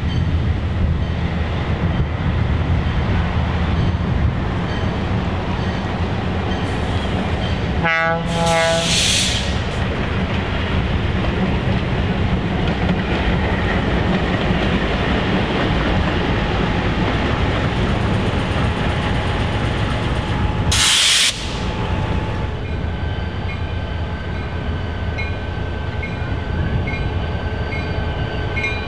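Diesel locomotive and train running with a steady low engine rumble. A loud burst of air hiss comes about eight seconds in and a short, sharp one about twenty-one seconds in. A light ringing repeats about every three-quarters of a second near the end.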